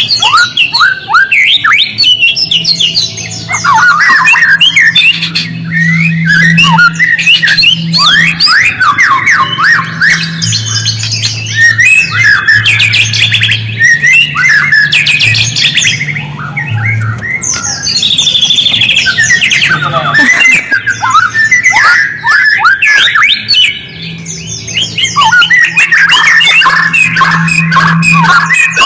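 Bird-lure recording of a songbird's rapid, harsh chattering calls, long runs of quick downward-sweeping notes with brief pauses, played to provoke white-rumped shamas into answering. A low steady hum runs underneath.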